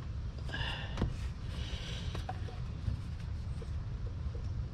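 A few light clicks and rubbing as a gloved hand works a small hose clamp and rubber breather hose on a car engine's air intake tube, over a steady low rumble.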